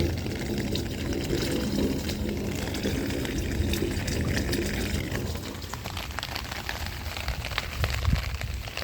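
Water pouring and trickling into an open French drain catch basin, with rain pattering. The heavier pouring eases about five seconds in, leaving mostly patter.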